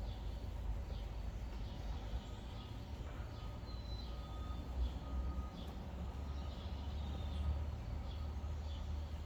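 Birds chirping outdoors at dawn, short calls repeating about once or twice a second, over a steady low rumble.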